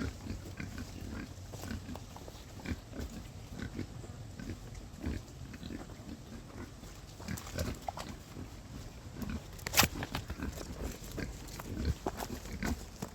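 Pigs chewing windfall apples: a run of irregular wet crunches and munching, with one sharper crunch about ten seconds in.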